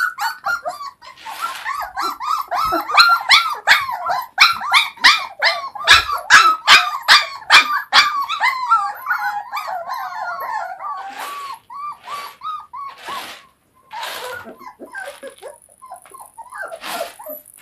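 Puppy whining and yelping in a long run of high, wavering cries, loudest in the first half. After that come a few short noisy bursts.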